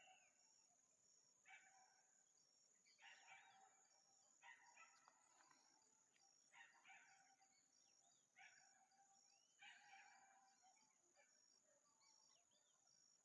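Faint bird calls, a short burst every one to two seconds, over a steady high-pitched whine.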